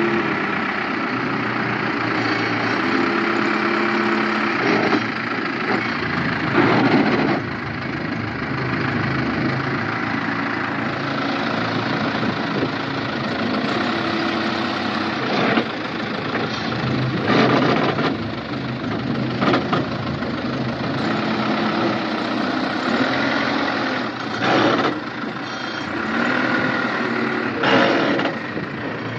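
Case 580 Super R backhoe loader's diesel engine running steadily, with several short louder spells every few seconds.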